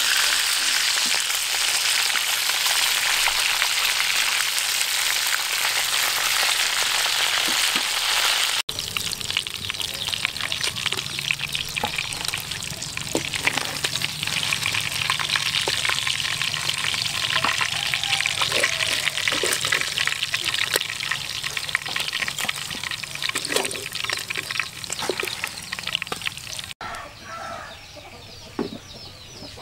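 Pieces of fish deep-frying in hot oil in a wok: a dense, steady sizzle. About nine seconds in it turns lighter, crackling with small clicks, and near the end it drops much quieter.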